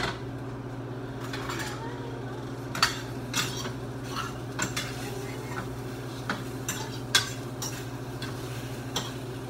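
A metal utensil clinking and scraping against a skillet in sharp, irregular taps as chicken pieces are turned, over a faint sizzle from the pan. A steady hum runs underneath.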